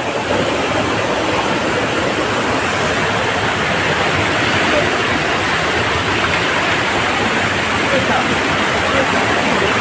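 Steady rush of a waterfall and its rocky mountain stream, a constant loud wash of water.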